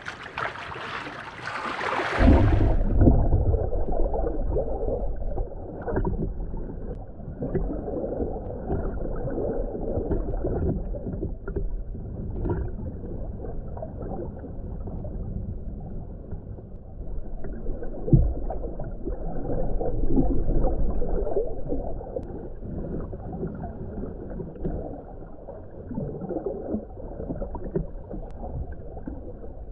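Lake water noise at the surface for the first two seconds or so, then the muffled underwater sound of the lake heard through an underwater camera: a steady low rumble with gurgling bubbles and scattered clicks, and a louder thump about eighteen seconds in.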